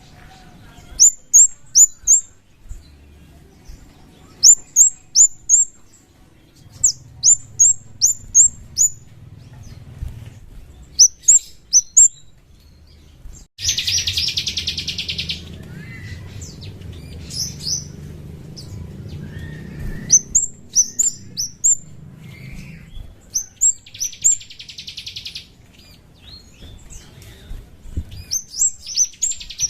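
A kemade songbird calling: runs of three to five sharp, high, downslurred chips, repeated every few seconds. Three loud, rapid buzzy trills break in, about fourteen seconds in, near twenty-four seconds, and again near the end.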